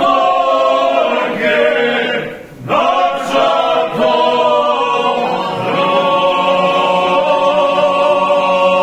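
A group of men singing unaccompanied in the Bosanska Krajina 'na suvo' style, holding long drawn-out notes together. There is a brief pause for breath about two and a half seconds in.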